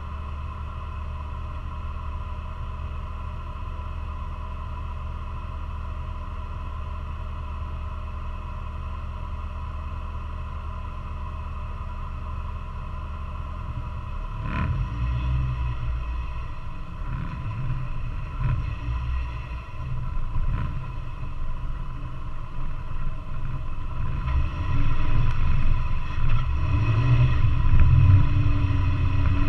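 Off-road vehicle engine idling steadily, heard from the hood. About 14 seconds in there is a knock, then the vehicle pulls away: the engine revs unevenly and the rumble grows louder as it drives over the rough trail.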